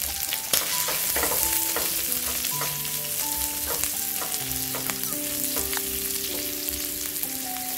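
Dried anchovies, shallots and ginger sizzling in hot oil in a non-stick pan, stirred and scraped with a silicone spatula, which gives scattered sharp clicks over the steady sizzle. The anchovies are being fried until crisp.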